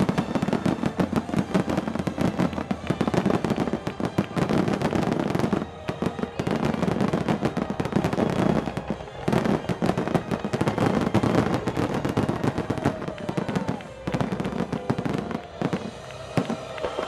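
Fireworks finale barrage: aerial shells bursting in rapid, almost continuous succession, with a few brief lulls.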